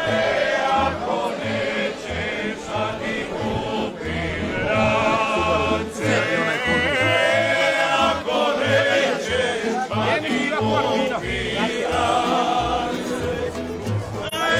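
A group of men singing a folk song together, with wavering held notes, accompanied by an accordion.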